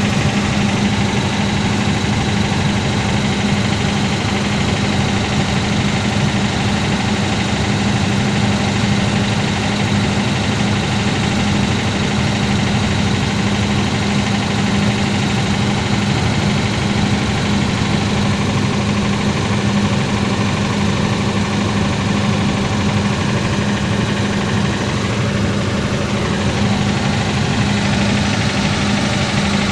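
An engine running steadily at an even idle, with a strong constant hum.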